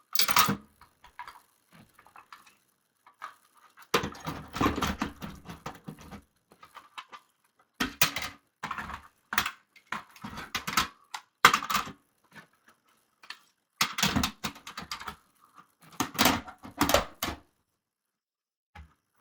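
Fire alarm devices being handled and packed into a box: irregular clusters of knocks, clunks and rustling as pieces are set down against one another, with a heavier thump and shuffle about four seconds in, then quiet for the last second or two.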